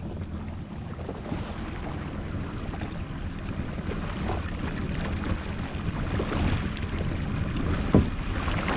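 Jet ski engine running at slow trolling speed, with water washing around the hull and wind on the microphone. A single sharp knock about eight seconds in.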